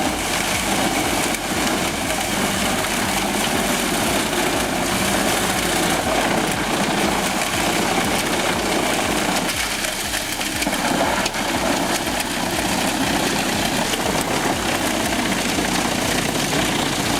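Wood chipper's engine running steadily, with a continuous low hum and a slight change in its sound about ten seconds in.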